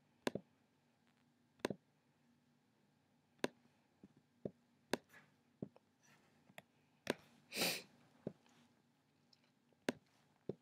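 Faint, irregular computer clicks, about a dozen short sharp ones at uneven gaps. About three-quarters of the way in there is one longer, breathy hiss.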